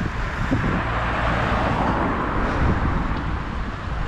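A car passing along the street, its tyre and engine noise swelling to a peak about halfway through and then easing off, over a steady low rumble.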